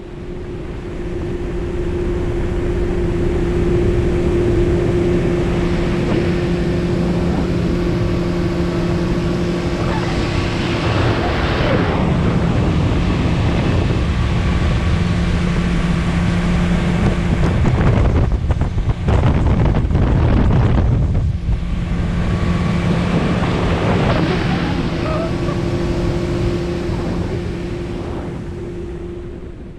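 Boat motor running steadily at speed with a constant droning hum, under the rush of water along the hull and wind on the microphone. The wind buffets harder for a few seconds in the middle, and the sound fades out near the end.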